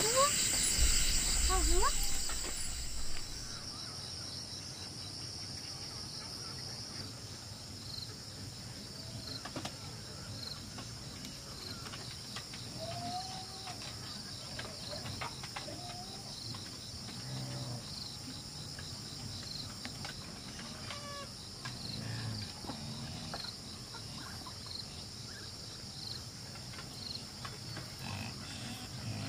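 Insects buzzing steadily at a high pitch for the first few seconds, then a quiet outdoor background with scattered faint chirps and animal calls.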